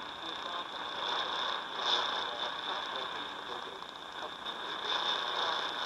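Weak shortwave reception of the CNR 7 Cantonese broadcast on 15550 kHz through the speaker of a C. Crane Skywave SSB 2 radio: mostly static hiss that swells and fades, with a steady high-pitched whistle and speech barely coming through.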